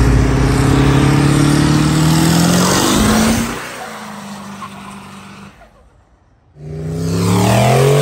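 Vehicle engines accelerating hard past along a street. One engine rises in pitch for about the first three seconds and then fades to a steady, quieter note. After a short drop-out, a second vehicle accelerates past loudly, its pitch climbing again.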